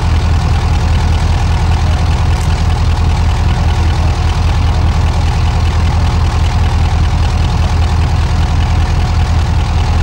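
Class 35 Hymek diesel-hydraulic locomotives idling, a steady low engine note from their Maybach engines.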